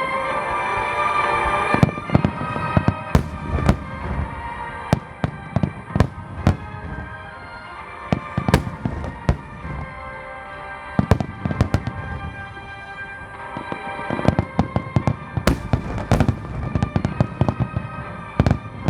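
Aerial fireworks bursting, many sharp booms and crackles in irregular volleys, over music played on loudspeakers. The music stands out in the first two seconds; after that the bursts are the loudest sound.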